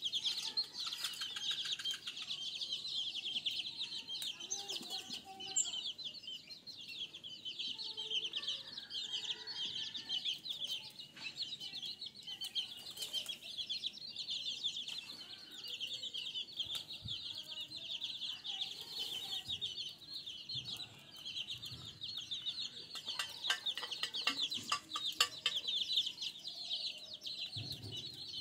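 A flock of chickens and pigeons feeding: hens clucking, wings flapping and scattered sharp clicks, under a steady high-pitched chirring.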